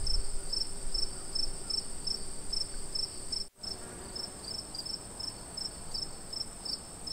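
Night insects, likely crickets: a steady high trill with regular short chirps about two to three a second. The sound cuts out for an instant about halfway through, then carries on.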